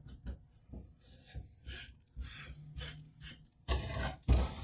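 A wooden board being handled and cleared of drill shavings: short scattered rustling and rubbing sounds, with a couple of louder knocks near the end.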